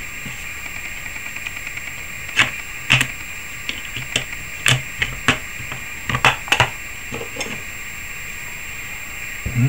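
Fingertip taps and clicks on a smartphone's newly fitted touchscreen while it is tested after repair: about ten short, sharp, irregular taps through the middle of the stretch, over a steady background hiss.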